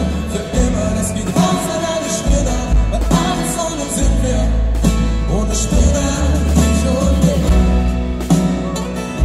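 Live acoustic pop band: male and female voices singing over an upright double bass, piano and drums, with the bass holding long low notes.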